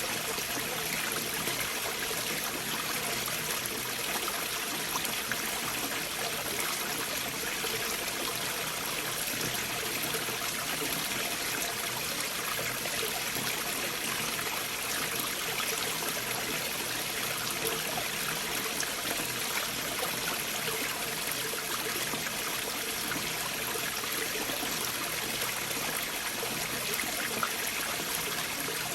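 A stream of water flowing beneath and between large boulders, a steady, unbroken rush of running water.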